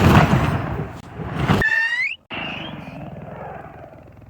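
A firework's loud rushing hiss for about a second and a half, then a short rising whistle, a sudden break, and a hiss that fades away.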